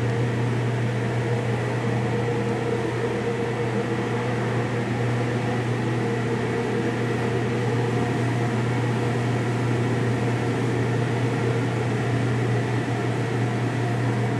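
Steady low mechanical hum with a fan-like rush from kitchen machinery running. It is constant and unchanging throughout.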